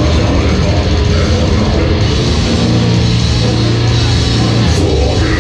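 Death metal band playing live: heavy distorted guitars, bass and drums in a dense, loud wall of sound, with a low note held for about two seconds in the middle.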